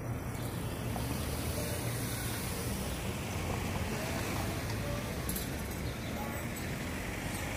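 Road traffic on a busy city avenue: cars driving past with a steady rumble of engines and tyres.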